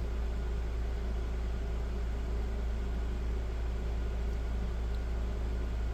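Steady low hum with a faint even hiss: room tone, with no other event.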